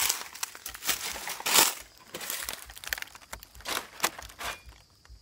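Large dry fallen leaves crackling and rustling as they are handled and pushed aside, in an irregular run of crisp crunches, loudest about one and a half seconds in.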